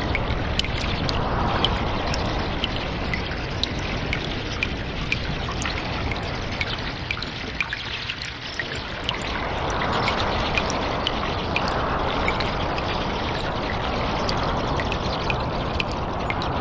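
Cave water trickling and dripping: a steady rush of running water with many small sharp drips on top, easing briefly about eight seconds in.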